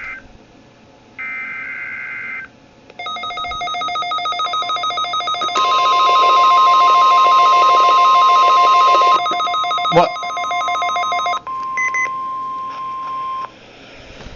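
NOAA Weather Radio alert for a Required Weekly Test. A burst of warbling two-pitch SAME header data tones is followed by weather radios sounding their alerts: rapid pulsing beeps with a loud steady high tone over them in the middle. The beeping cuts off about eleven seconds in, and a few short beeps and a fading tone follow.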